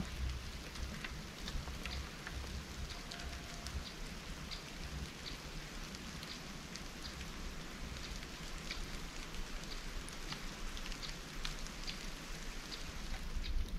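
Steady rain falling, with many separate drops heard as light ticks over a low rumble.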